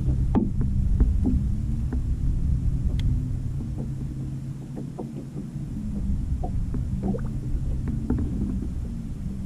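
Low rumble of a bass boat on the water, with scattered light taps against the hull and a faint steady hum that eases off briefly about halfway through.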